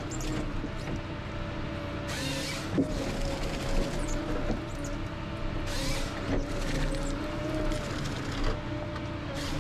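Ponsse Scorpion King forest harvester running, a steady low machine drone with a held whine over it, broken three times by short hissing bursts: about two seconds in, near six seconds and again at the end.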